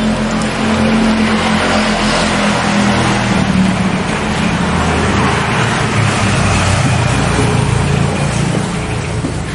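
Electric rotary polisher with a wool pad running against car paint to work in rubbing compound. It is a loud, steady motor whir whose pitch shifts a little as the pad is worked.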